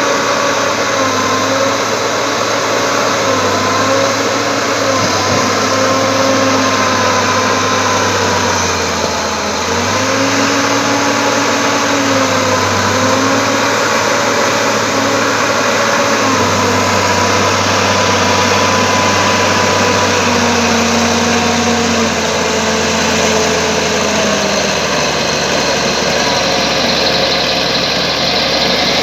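Bulldozer diesel engine working, its engine note rising and falling as the load changes, over a steady mechanical din.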